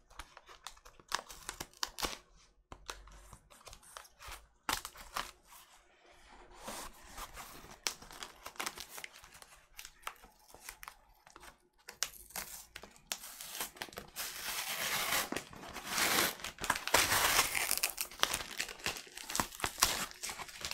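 Cardboard vinyl record mailer being torn open by hand: scattered rustles and clicks of handling, then a long, loud rip of cardboard in the second half.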